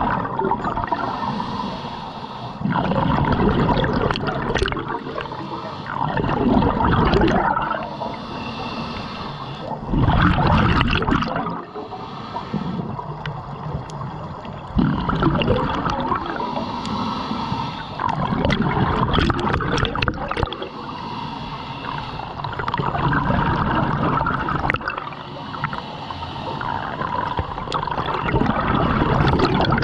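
Scuba diver breathing through a regulator underwater, with exhaled bubbles gurgling and rushing past in surges every three to five seconds.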